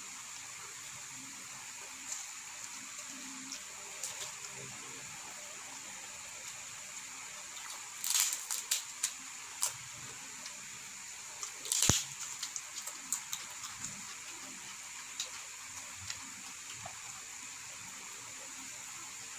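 Eating sounds: chewing and wet mouth noises over a steady hiss, with two clusters of sharp crackles about eight and twelve seconds in from biting into crisp chicharon (fried pork rinds).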